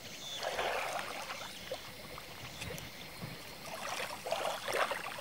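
Faint water splashing and trickling at the lake's edge as a landed black bass is lifted out of the water by hand, with a few small splashes about half a second in and again near the end.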